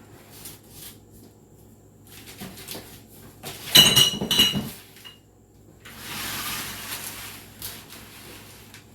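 Dishes and glass containers being handled and knocked together, with a loud ringing clink about four seconds in, then a soft rustle.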